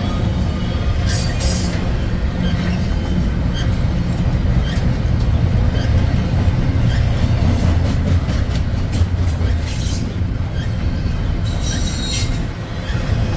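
Freight train cars rolling past with a steady low rumble and a run of wheel clicks over rail joints. Short high-pitched wheel squeals flare up about a second in, again around ten seconds in, and near the end.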